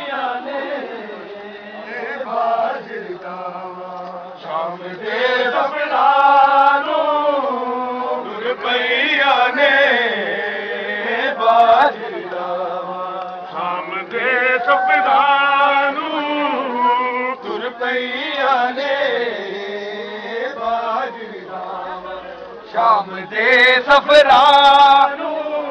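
A group of men's voices chanting a Punjabi noha, a mourning lament, together in long rising and falling phrases. It grows louder near the end.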